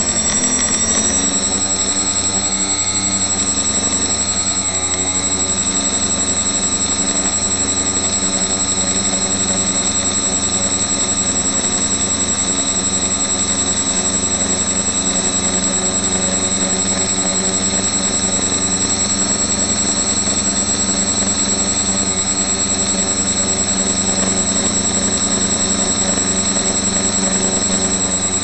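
Quadcopter's four brushless outrunner motors (Suppo 2212 1200kv) spinning 8x4.5 propellers in flight, heard close up from a camera fixed to the frame. The motors run steadily with a few brief, small shifts in pitch as the throttle changes, and a constant high whine sits over them.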